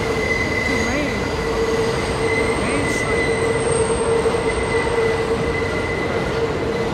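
New York elevated subway trains running over a steel viaduct, their wheels squealing in a steady, sustained two-tone screech on the curve over the continuous rumble of the cars.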